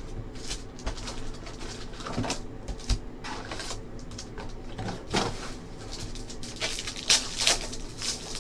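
Handling of trading-card packaging: cardboard box and foil wrapper packs rustling and clicking, with a couple of sharp crinkles near the end as a foil pack is torn open.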